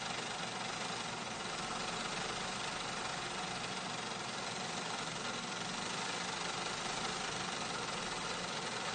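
Factory machinery running steadily, a dense, even mechanical noise with a faint hum running through it.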